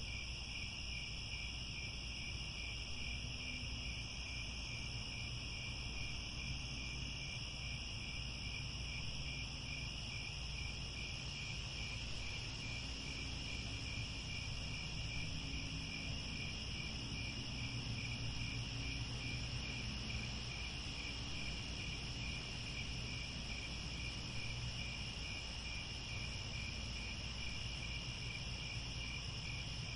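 Crickets chirping in a steady, evenly pulsing high chorus over a low, steady rumble.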